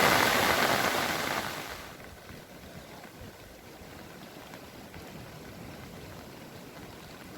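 River in monsoon spate rushing, a loud steady rush of water that fades away over the first two seconds. It leaves a much fainter, duller rush.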